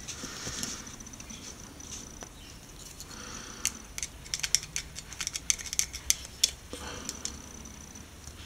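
Small clicks and taps of a toy car's metal axle and wheels being handled and pressed into the clips of its plastic base. A dense run of sharp clicks starts a few seconds in.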